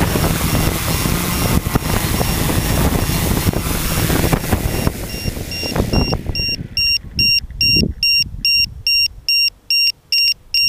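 Quadcopter's electric motors and propellers whirring as it lands, then spinning down and stopping about six seconds in. Right after, an electronic beeper on the aircraft gives short, high, evenly spaced beeps, about two and a half a second.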